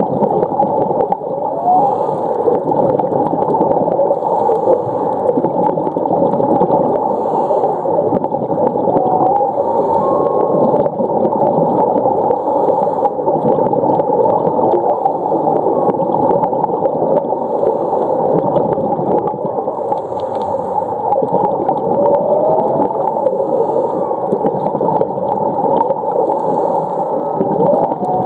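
Humpback whale calls: a few faint whines that glide up and down in pitch, scattered over a steady rushing wash of water noise.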